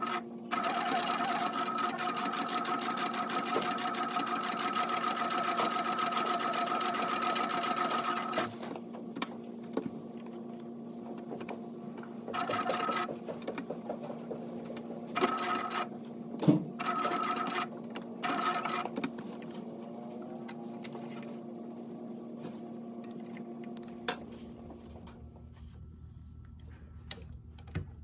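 Industrial sewing machine stitching fabric: one long steady run of about eight seconds, then several short bursts of stitching in quick succession. The motor keeps humming in the pauses between bursts.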